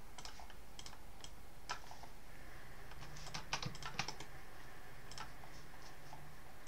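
Faint, scattered clicks of a computer keyboard and mouse, some in quick runs about halfway through, over a low steady hum.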